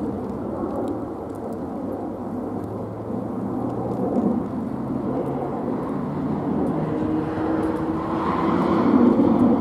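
ChME3 diesel-electric shunting locomotive running under power as it approaches with a freight train. Its six-cylinder diesel gives a steady low drone that grows louder toward the end.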